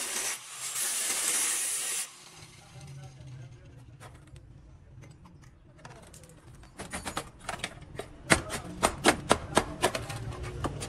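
Angle grinder with a cutting disc slicing through a rusted rocker panel, stopping abruptly about two seconds in. Near the end comes a quick run of sharp hammer strikes on rotten rocker-panel metal, about three to four a second, knocking the rusted section out.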